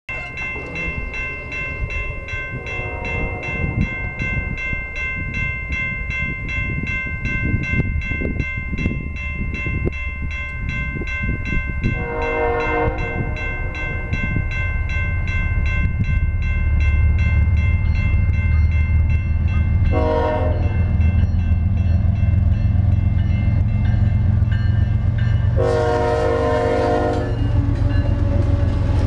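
Railroad crossing bell ringing rapidly while an approaching freight locomotive sounds the grade-crossing horn signal: two long blasts, a short one, then a final long one. The deep diesel rumble and wheel noise swell in the second half as the locomotive reaches the crossing.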